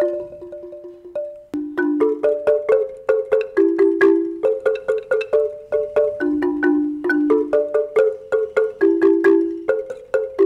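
Marimba playing a fast run of struck notes, often two at a time, each ringing briefly before the next. The first second and a half is softer, then it carries on at a steady lively pace.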